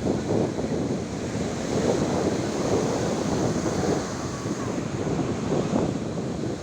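Sea waves washing in and out on the shore, with wind buffeting the microphone.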